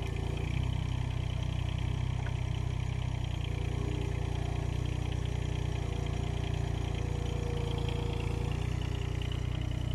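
Mini excavator's diesel engine running steadily as the bucket digs into the soil, with a fainter higher hum that comes in about three and a half seconds in and fades near the end.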